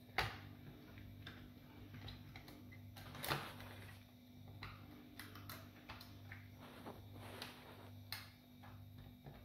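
Plastic parts of a Nerf Rival Roundhouse blaster being handled and fitted together by hand: scattered small clicks and taps. The sharpest come just after the start and about a third of the way in. A faint steady hum runs underneath.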